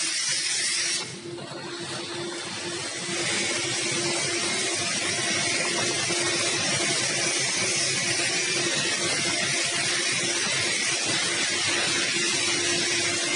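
JYT-B hot melt coating machine running, its rollers carrying a web of white roll material: a steady hiss-like machine noise with a steady hum, briefly quieter about a second in.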